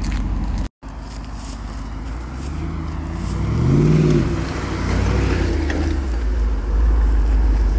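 Jeep Wrangler Rubicon 392's V8 engine running at low speed off-road, rising in pitch to a short rev about halfway through, then easing back. The sound cuts out for a moment near the start.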